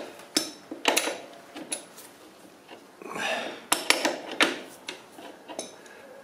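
Adjustable spanner clinking against a motorcycle's rear axle nut as it is fitted and pulled on: a handful of sharp, separate metal clicks, with a short rubbing swell about three seconds in.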